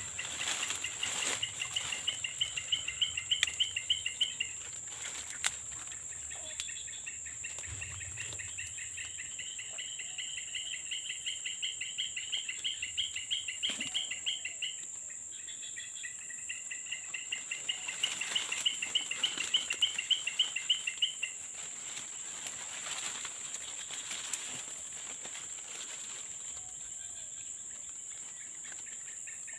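Insect chorus: a steady high-pitched drone, with a loud, rapid pulsing trill that comes in three long bouts and a few scattered clicks.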